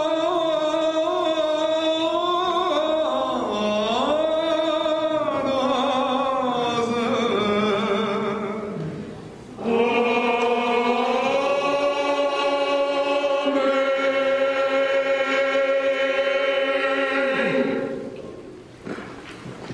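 Small mixed choir of men's and women's voices singing. A moving phrase ends about eight seconds in, then the choir holds a long sustained chord that dies away near the end.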